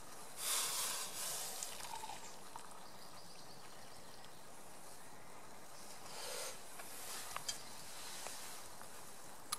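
Hot water poured briefly from a metal canteen cup into a plastic mug, about half a second in, over a faint steady hiss; a shorter rustle follows about six seconds in.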